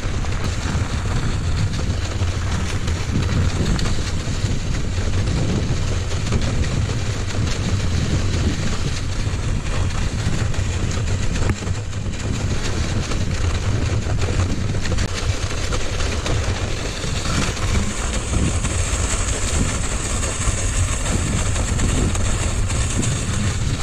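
Steady low rumble and hiss of a mountain bike riding through snow while towing a sled, with a brighter hiss joining about eighteen seconds in.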